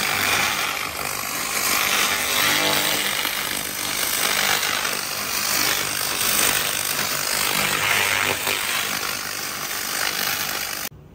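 Handheld fiber laser gun cutting steel plate: a steady hiss of the gas jet with the crackle of sparks, cutting off abruptly near the end when the trigger is released.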